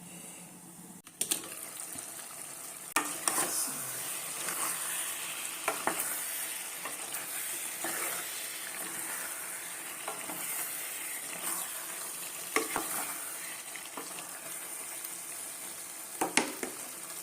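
Pot of beef, fried plantain and tomato-pepper sauce sizzling as it cooks, the steady sizzle starting about a second in. A spoon stirs and knocks sharply against the pot about six times.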